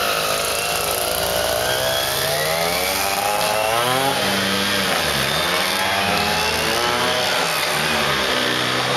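Several Vespa scooters' two-stroke engines buzzing as they ride off together. The pitch rises and falls with throttle and gear changes, with a dip about halfway through.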